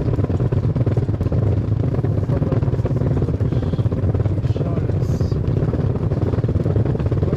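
Steady low rumble of wind buffeting an action camera's microphone while walking, fluttering rapidly with no pauses.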